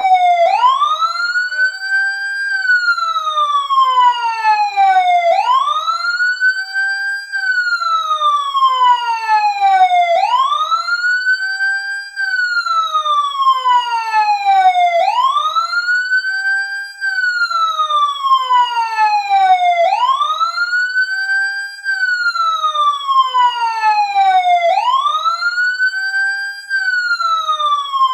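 Fire truck siren wailing, starting abruptly as the countdown timer's alarm at zero: each cycle rises quickly in pitch, holds briefly at the top, then falls slowly, repeating about every five seconds.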